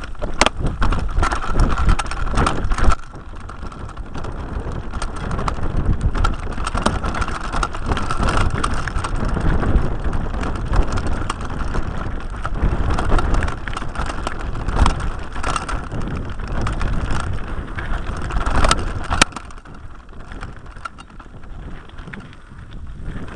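A mountain bike riding fast over a rough, rocky trail, heard from a camera mounted on the bike. There is continuous rushing noise with a dense rattle and knocking from the bike jolting over the ground, and it eases off for a few seconds near the end.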